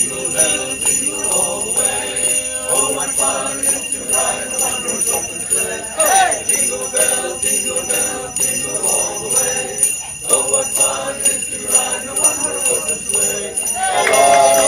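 Jingle bells shaken in a steady rhythm, with voices singing under them. Everything grows louder near the end.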